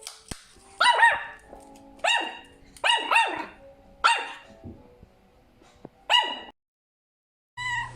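Small dog barking: about six sharp, high-pitched yaps at uneven intervals, then a pause. Just before the end a different sound starts, with a low steady hum.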